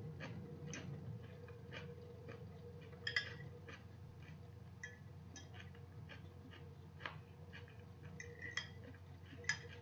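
Eating salad: a fork clinking and scraping against a bowl, with chewing, heard as a scattered run of small clicks and clinks. The sharpest come about three seconds in and near the end.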